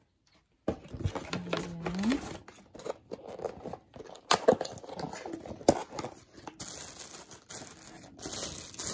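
Cardboard boxes and plastic packaging being handled: box flaps pulled open and plastic bags crinkling, with scattered knocks and clicks. It starts after a brief quiet moment.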